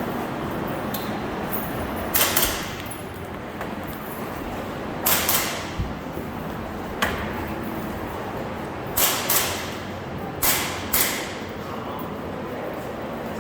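An airsoft pistol firing a string of about nine sharp shots, mostly in quick pairs a couple of seconds apart.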